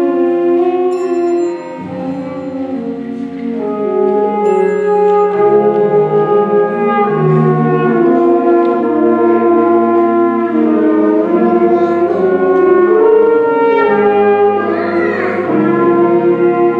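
School concert band playing a slow hymn-like passage, brass to the fore, in sustained chords that change every second or two. Two brief bell-like strikes ring out near the start.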